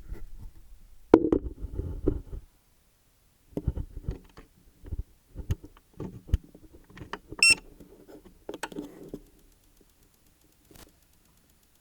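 Knocks and button clicks from handling the EcoFlow DELTA 3 portable power station, with a short electronic beep about seven and a half seconds in. From about nine seconds a faint, rapid, high-pitched 'chi-chi-chi' ticking keeps on from inside the unit. This is the abnormal noise its inverter makes with the AC output switched on.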